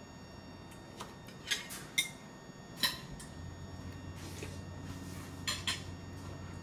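Scattered light clinks and taps of a small child's hand and fingers against a ceramic bowl while eating by hand, about six short knocks in all. A low steady hum comes in about halfway through.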